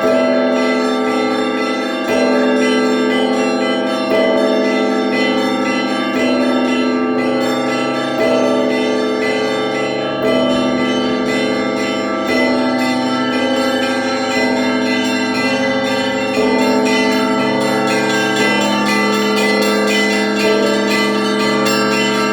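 Russian Orthodox church bells rung by a bell ringer: a deep bell struck about every two seconds under continuous rhythmic ringing of smaller bells, a festive peal.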